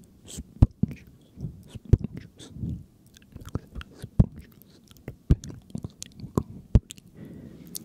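Close-miked ASMR mouth sounds: irregular wet clicks and lip smacks, several a second, with soft breathy murmurs in between.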